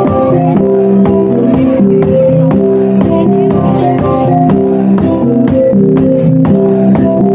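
Bahnar gong ensemble (chiêng) playing: many gongs ring with held, overlapping notes, over sharp strokes about twice a second.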